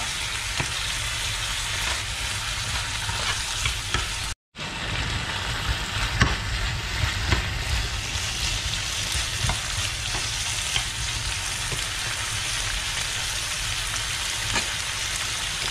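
Pork, shrimp, potato and onion sizzling in black bean sauce in a hot pan, stirred with a metal spoon that scrapes and clicks against the pan now and then. The sound cuts out completely for a moment about four seconds in.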